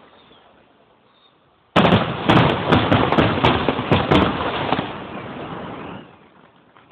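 Aerial fireworks: after a quiet start, a sudden rapid string of sharp bangs and crackling begins about two seconds in, goes on for about three seconds, then dies away.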